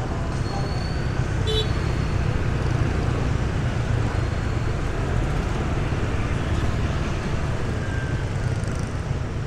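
Steady rumble of dense motorbike and scooter traffic, heard while riding along among it. A short horn beep sounds about a second and a half in.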